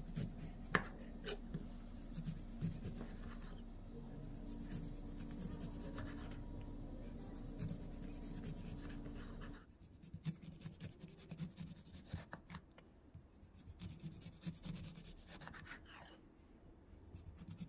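Soft rubbing and scraping with light clicks, over a steady low hum that cuts off suddenly about halfway through.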